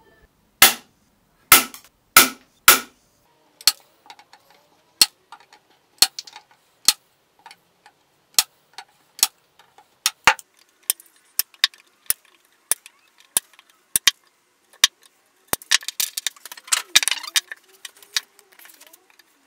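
Fret wire being hammered into a guitar fretboard with a fret hammer: a series of sharp metallic knocks, irregularly spaced about one to two a second. The four loudest strikes come in the first few seconds, and a quicker flurry of lighter taps comes about two-thirds of the way through.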